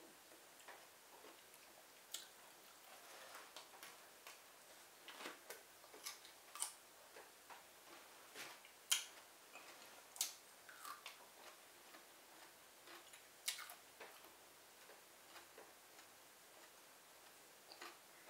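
Quiet chewing and mouth sounds of a person eating: scattered, irregular wet clicks and lip smacks at no steady rhythm, one of them louder about nine seconds in.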